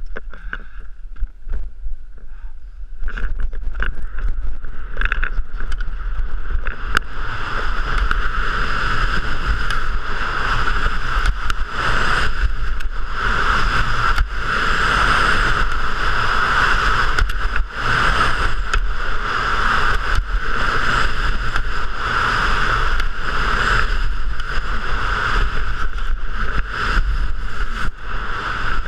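Wind rushing over the camera microphone and skis carving and scraping on packed snow during a fast giant slalom run. It starts quieter with a few clicks, then about three seconds in becomes a loud, steady rush.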